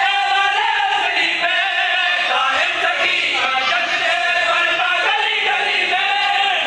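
Several men's voices chanting a qaseeda, a devotional poem, together in a steady sung recitation.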